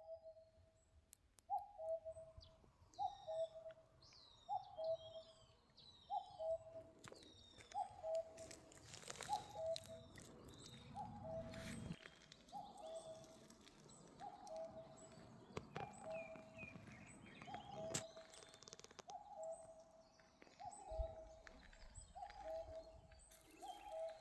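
Birdsong: a bird repeats a two-note call, a higher note dropping to a lower one, about every second and a half, with other small birds chirping in brief high trills.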